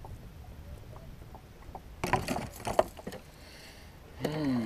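A freshly landed bass flopping on a boat deck: a short burst of clattering knocks about two seconds in, over a low steady rumble. A brief man's voice sound near the end.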